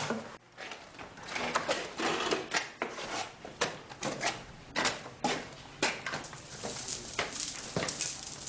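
Irregular clicks and knocks, a few a second, over a steady hiss.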